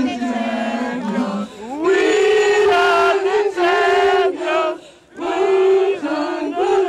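A woman humming a wordless tune into a handheld microphone, held notes of about a second each, with a short break about five seconds in.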